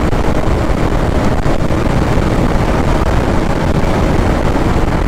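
Motorcycle riding fast on a highway: steady wind rush over the microphone with the engine's drone underneath.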